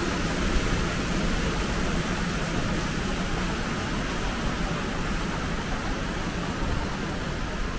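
Steady background noise inside a large shopping mall: an even hiss with no distinct events.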